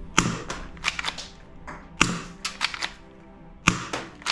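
Gold plastic toy Desert Eagle pistol being handled and worked: a string of a dozen or so sharp plastic clicks and clacks in clusters as its slide and mechanism snap.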